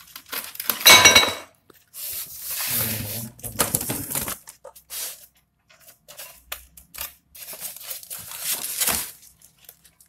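Polystyrene foam packing and cardboard being handled and pulled apart to free a microwave's glass turntable tray, in irregular bursts of scraping and rubbing, the loudest about a second in.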